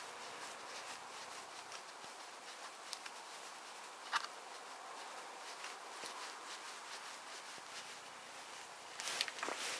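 Faint handling noise from a takedown .22 rifle being assembled by hand, its front takedown nut being tightened, over a low steady hiss. There is a single light click about four seconds in and a short run of clicks and rattles near the end.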